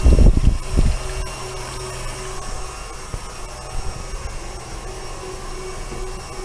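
Electric stand mixer running steadily at speed, whipping chocolate whipped cream in its metal bowl. A few low knocks sound in about the first second.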